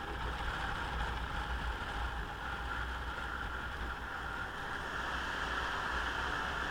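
Motorcycle running along a road at steady speed: a low engine rumble under a constant rush of wind over the microphone, growing slightly louder near the end.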